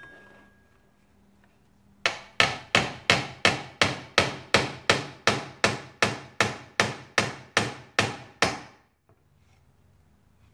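A hammer striking a metal fitting into a laminated pine board: about eighteen even, steady blows at nearly three a second, starting about two seconds in, snugging the fitting tight without splitting the wood.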